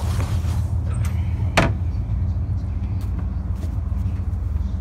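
Steady low rumble with one sharp knock about a second and a half in, and a few faint clicks after it.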